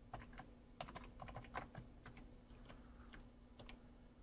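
Faint typing on a computer keyboard: a quick run of key clicks in the first two seconds, then a few scattered presses, over a faint steady hum.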